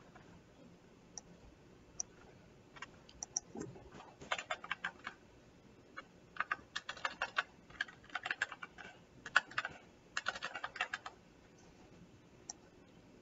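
Typing on a computer keyboard in several quick bursts of keystrokes, after a couple of single clicks.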